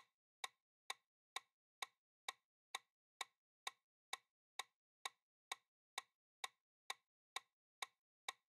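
Countdown timer sound effect: short, sharp ticks, evenly spaced about two a second, marking the quiz's 10-second answer time running down.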